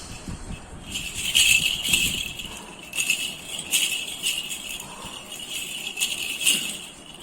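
Baby's toy rattle (jhunjhuni) shaken by a six-month-old baby, jingling in uneven bursts with short pauses between them, then stopping near the end.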